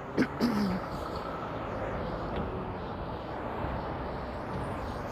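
Steady road traffic noise from vehicles at an intersection, with a brief voice sound and a few short knocks in the first second.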